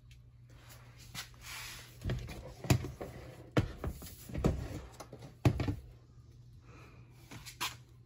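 Handling noise from a Lasko Power Plus box fan's plastic housing as it is moved and turned over: irregular knocks, thumps and scraping, the loudest near the middle, over a steady low hum.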